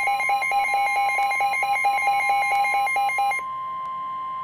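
Weather radio alert tone: a steady warning alarm tone with a rapid pulsing beep over it, the beeping stopping about three seconds in and the steady tone carrying on alone, a little quieter. It is the alarm that opens a NOAA Weather Radio severe thunderstorm warning.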